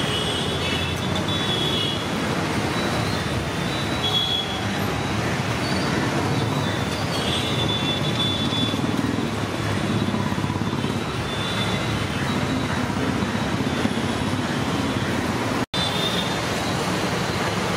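Steady road traffic noise from passing vehicles, with short high tones over it now and then. The sound drops out for a split second near the end.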